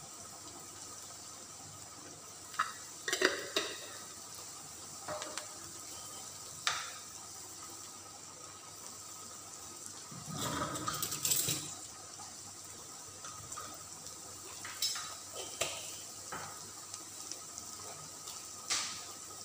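Wooden spatula knocking and scraping against an aluminium pan of sautéing chopped onions, over a faint steady sizzle. Scattered single knocks, with a longer scraping stir about halfway through.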